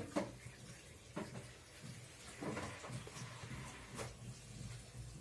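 Hands tossing and turning a heap of chopped alfalfa and herbs in a wooden bowl: faint rustling, with a few short taps, the sharpest right at the start.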